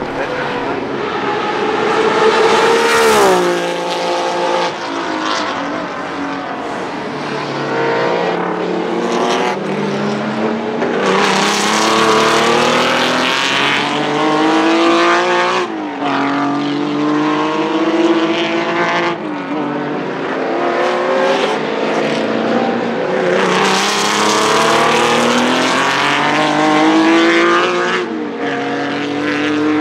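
Cosworth GAA 3.4-litre DOHC V6 of a Ford Capri RS 3100 Group 2 race car at full throttle. Its pitch climbs through the revs and drops sharply at each gear change, about six times, and the loudness swells and fades as the car passes and pulls away.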